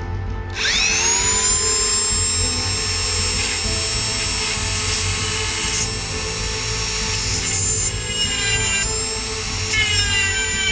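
A Dremel rotary tool spinning up about half a second in and then running with a steady high whine, its pitch wavering near the end.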